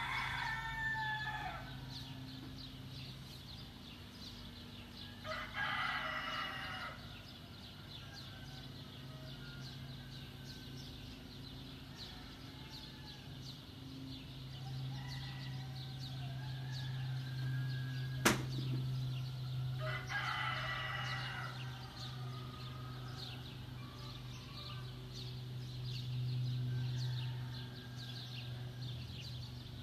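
Rooster crowing three times, each crow about a second and a half long, with another crow starting at the very end. A steady low hum runs underneath, and a single sharp click comes about 18 seconds in.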